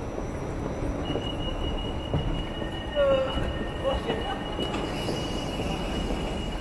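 Copenhagen Metro train at an underground platform, running with a steady rumble and a steady high whine that starts about a second in. About three seconds in there is a brief, falling high note, the loudest moment.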